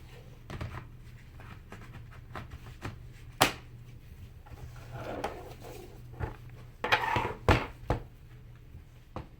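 Scattered clicks and knocks of a Lenovo ThinkPad T470 laptop being handled on a work surface after reassembly. A sharp click comes about three and a half seconds in, and a cluster of knocks and a short scrape near the end.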